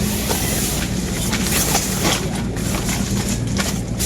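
An engine running steadily with a low hum, with noisy rustling and scattered clicks over it.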